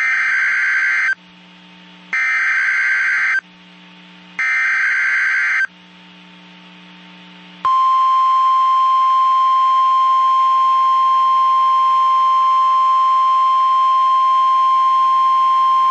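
NOAA Weather Radio SAME (Specific Area Message Encoding) header: three warbling digital data bursts, each about a second long and about a second apart. About seven and a half seconds in, the steady 1050 Hz warning alarm tone starts and holds, the signal that an urgent warning broadcast, here a tornado warning, is about to follow.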